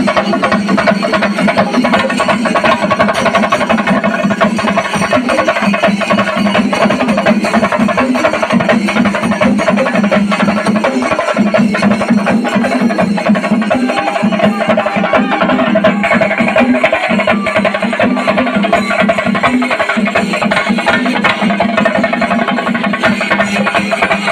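A troupe of Kerala chenda drums beaten with sticks in a fast, dense, continuous rhythm, with cymbals clashing over it.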